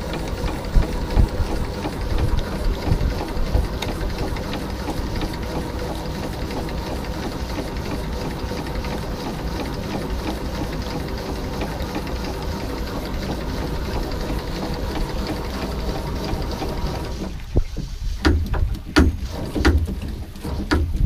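Small vertical steam launch engine running steadily with a fast mechanical ticking, the tick heard when first underway that fades with time on the water, which the owner asks is normal. About 17 seconds in the steady running gives way to a sparser series of separate knocks.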